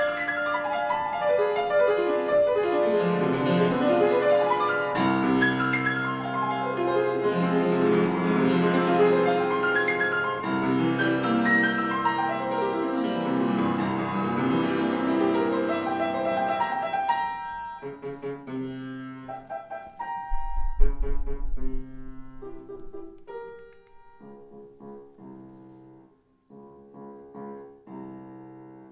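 Background classical piano music. It plays dense runs of notes at first, then from about two-thirds of the way through thins to separate chords with short gaps. There is a brief low thump in the middle of the sparse part.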